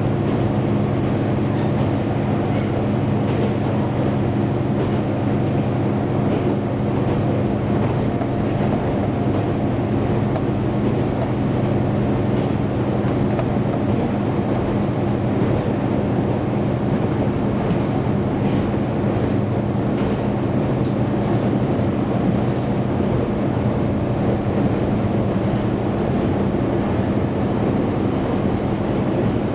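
Diesel railcar on the move, its engine giving a steady low drone over the rumble of wheels on the rails; the engine's tones grow less distinct in the last third.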